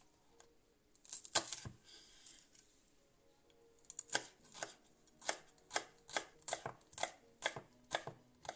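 Chef's knife chopping sugar snap pea pods on a wooden cutting board: a couple of strokes about a second in, then steady chopping at about two strokes a second from halfway through.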